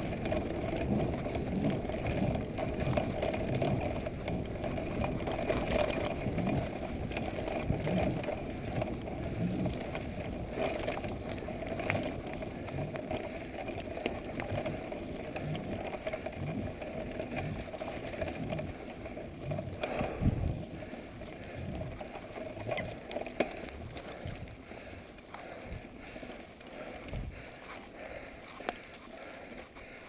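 Corratec mountain bike rattling as its tyres run over a bumpy dirt trail, with many knocks from the bike and a sharp one about two-thirds of the way through. The rattle eases somewhat near the end.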